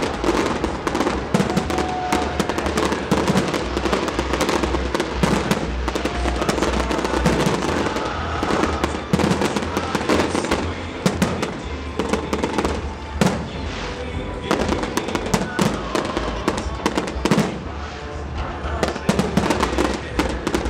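Large fireworks display: aerial shells bursting in quick, irregular succession, many sharp bangs overlapping, with crackling stars among them.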